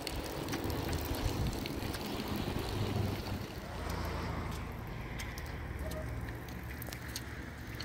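Wind rumbling and buffeting on the microphone, with light footsteps on a paved road.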